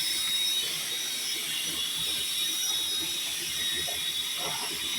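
A small electric motor running steadily: an even hiss with a constant high-pitched whine.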